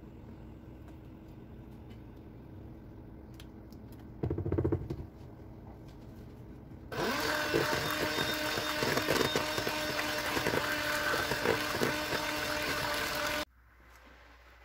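Electric hand mixer beating the strawberry ice-cream mixture at a steady speed for about six seconds, then cutting off suddenly near the end. A brief low rumble comes about four seconds in.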